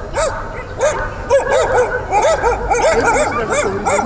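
Several stray dogs barking: short barks in quick, overlapping succession, a few at first and then several a second from about a second in.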